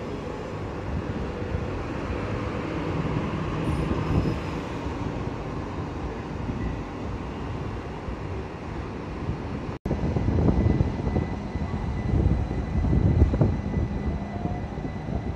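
Southeastern Class 375 Electrostar electric train moving along the platform and pulling away, its wheels and running gear rumbling. A faint steady whine joins about six seconds in.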